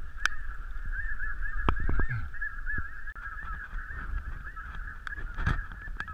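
A large flock of snow geese calling: many high, overlapping honks and yelps running together into a steady din. A couple of sharp knocks come through it, near the middle and near the end.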